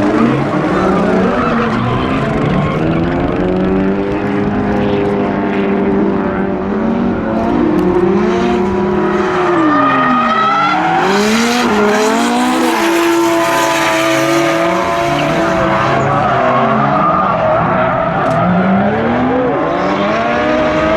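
Drift cars on track: engines revving hard, the pitch repeatedly rising and falling as they are worked on and off the throttle, with tyre squeal and skidding noise underneath.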